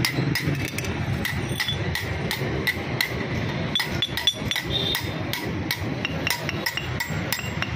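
Hand hammer striking a flat metal piece on the ground in a steady run of sharp blows, about three to four a second.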